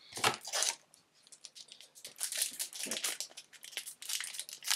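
Foil trading-card booster pack wrapper crinkling in the hands, a run of quick sharp crackles that grows denser about halfway through as the pack is worked open.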